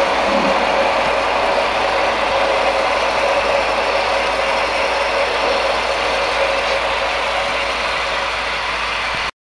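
HO scale model freight train running on the layout, a steady mechanical rumble of wheels on track and locomotive, which cuts off suddenly near the end.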